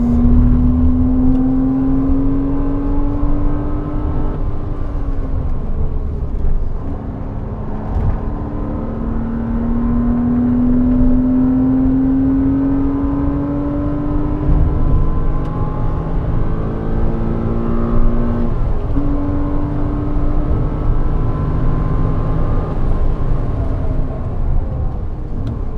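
Porsche Cayman 987's mid-mounted flat-six engine at track speed, heard from the cabin over steady road and tyre rumble. The revs climb under acceleration, ease off about 4 seconds in, climb again until about 14 seconds, and jump up suddenly around 18 seconds.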